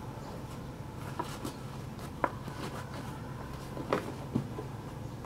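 Hands handling a leather sneaker: a few faint, short taps and rustles as fingers press and fold the upper and its tongue, over a steady low background hum.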